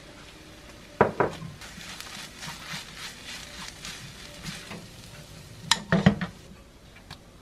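Wooden spoon stirring and scraping fried rice in a nonstick frying pan, with two sharp knocks of the spoon against the pan about a second in and a cluster of louder knocks near the end.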